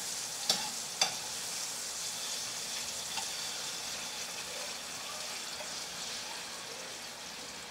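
Chopped tomatoes sizzling in hot oil in a frying pan, a steady hiss that eases slightly toward the end. Two sharp metal taps of a utensil on the pan about half a second and a second in.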